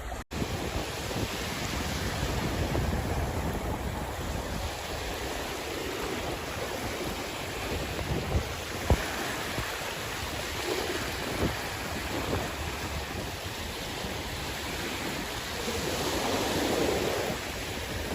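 Sea waves washing on the shore: a continuous surf wash that rises and falls, with one wave swelling louder near the end.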